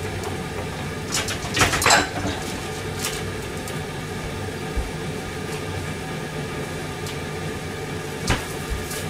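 A steady mechanical hum in a home kitchen, like a running fan or appliance, with a few short clinks of cookware: a cluster about one to two seconds in and single clinks later on.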